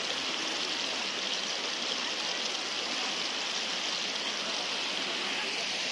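Steady rush of flowing stream water, an even hiss with no breaks or changes.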